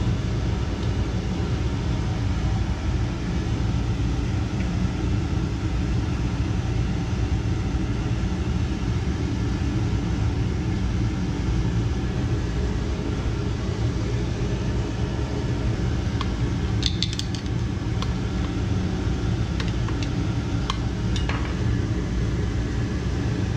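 Steady low machinery hum and rumble, with a few light metal clinks as a replacement Bell & Gossett circulator pump motor is worked by hand onto the pump's bearing assembly. The clinks come as a cluster about two-thirds of the way through and a couple more near the end.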